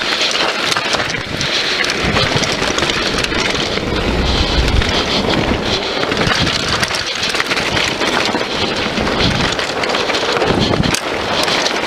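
Scott Voltage FR 730 mountain bike ridden fast down a dirt trail: wind buffeting the action camera's microphone, with tyre noise on the dirt and frequent knocks and rattles from the bike over bumps.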